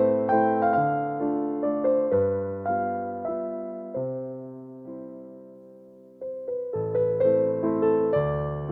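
Soft, slow piano music. The notes thin out and die away in the middle, then the playing picks up again about two-thirds of the way through.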